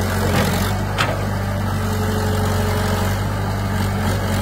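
Diesel engine of an old Kato hydraulic excavator running steadily, with a single short knock about a second in.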